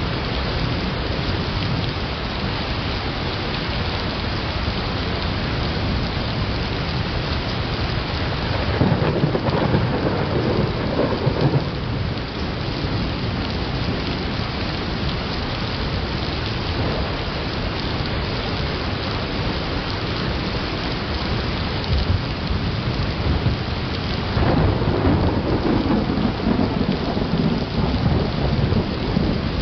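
Thunderstorm: steady rain with two low rolls of thunder, one about nine seconds in lasting a few seconds, and another from about twenty-four seconds in that carries on to the end.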